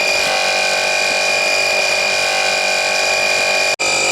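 Air compressor used as a vacuum pump, running steadily with a constant high tone while it draws vacuum on a brake booster under test. The sound cuts out for an instant near the end.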